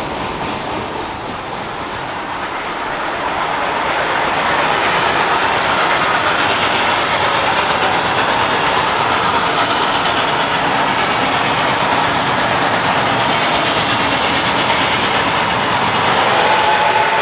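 Passenger train behind the Reading & Northern 425 steam locomotive rolling past, a steady rush with wheels clicking over rail joints, growing louder a few seconds in. A steam whistle starts to blow right at the end.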